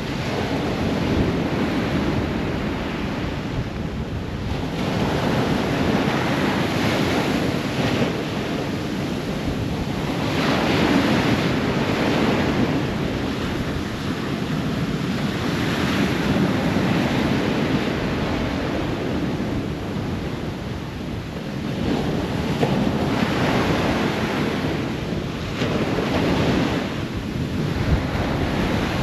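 Ocean waves breaking on a shore: a continuous wash of surf that swells and eases as each wave comes in, every five or six seconds.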